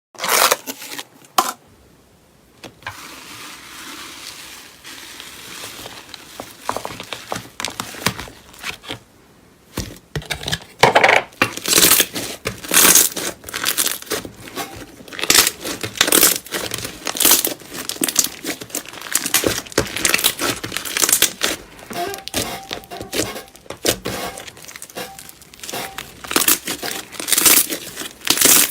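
Slime being squeezed and pressed by hand, giving a run of sharp crackles and pops. The crackles are sparse over a soft hiss at first, then come thick and fast from about a third of the way in.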